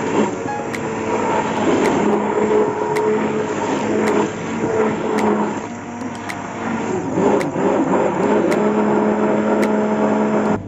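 Immersion (stick) blender running in a steel pot of pancake batter, its motor giving a steady whine over the churning of the liquid. The pitch wavers for a moment about seven seconds in as the blade's load changes.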